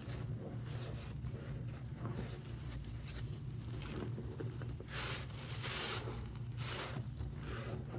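Foam-soaked sponge squeezed and worked by hands in rubber gloves in a sink of sudsy water, rinsing out Comet cleanser: wet squelching and sloshing, with louder squeezes about five and about seven seconds in. A steady low hum runs underneath.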